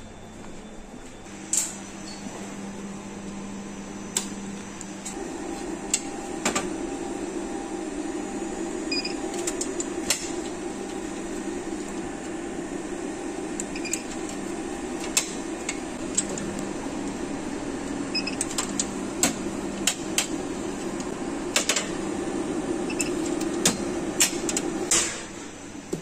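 A steady appliance hum that starts about five seconds in, runs for some twenty seconds and cuts off near the end, with scattered sharp clicks and knocks over it.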